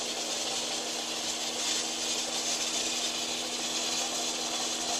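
Steady hiss with an even low hum from the fire-training container's equipment.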